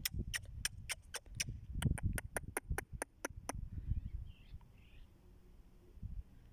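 A quick run of about sixteen sharp clicks, some five a second, that stops about three and a half seconds in, over a low rumbling; two faint chirps follow.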